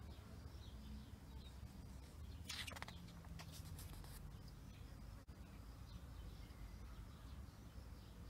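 A page of a thick paper catalogue being turned: a brief crackly paper rustle about two and a half seconds in, over a low steady hum.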